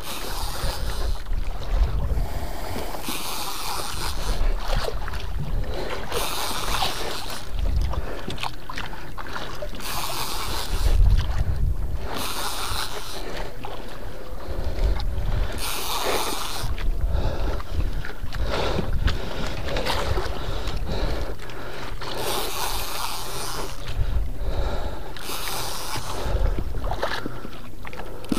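Wind buffeting the microphone over water sloshing against a small boat, with spells of a Water Killer conventional reel whirring as it is cranked in, fighting a fish on a bottom rig.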